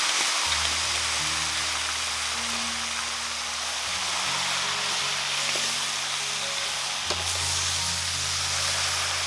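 Steady sizzle of food frying in a hot pan, with background music playing sustained low notes that change every few seconds.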